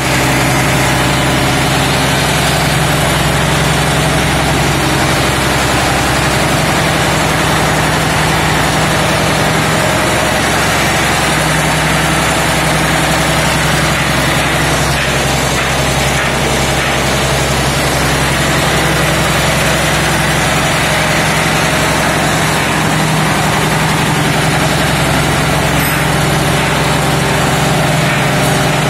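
Large industrial diesel engine idling steadily.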